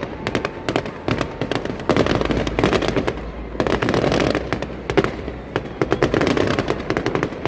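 Fireworks going off in a dense barrage: many sharp bangs and crackles in quick succession, overlapping one another.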